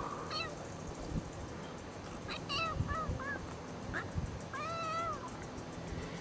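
Kitten meowing as a pit bull puppy wrestles on top of it: a few short meows, a quick run of them in the middle, then one longer rising-and-falling meow near the end.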